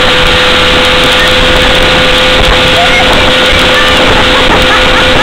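Evinrude 70 hp outboard motor running at steady towing speed, a steady whine under a loud, constant rush of wind and churning water from the wake.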